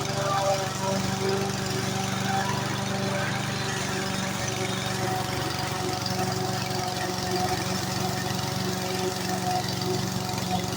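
Lawn mower's engine running steadily at an even speed.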